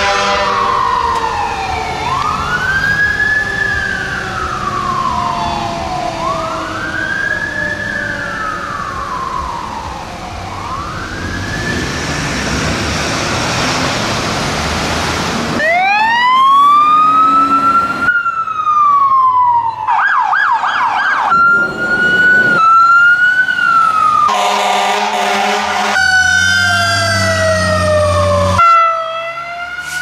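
Fire engine siren wailing in slow rises and falls, each rising quickly and trailing off slowly, as a mechanical Federal Q siren does when spun up and left to coast. About halfway through it gives way to a quick succession of other fire truck sirens: steep electronic wails, a fast warbling yelp, and short blasts of steady horn tones.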